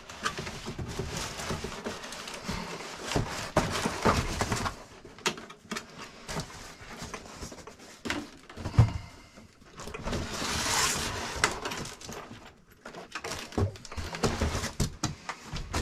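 Cardboard box and packing being handled as a large RC buggy is taken out: rustling and scraping with scattered knocks, a sharp thump a little before halfway, then a long sliding scrape.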